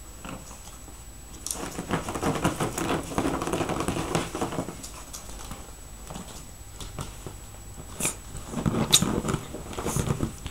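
Two Petit Brabançon puppies playing and scuffling inside a padded fabric carrier bag, with rustling of the bag and small puppy play noises. It comes in two bouts: a longer one starting about one and a half seconds in, and a shorter one near the end.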